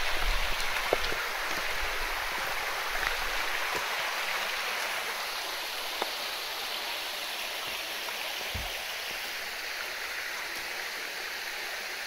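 Water of a mountain stream rushing steadily, with a few faint knocks.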